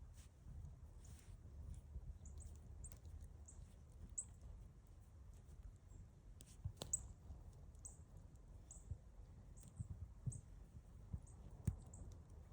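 Faint, high-pitched short chirps repeating about twice a second over a low rumble, with two sharp clicks, one past the middle and one near the end.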